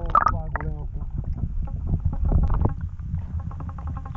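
Muffled low rumble and sloshing of lake water around a waterproof action camera held at and under the surface, with brief bits of a man's voice at the start.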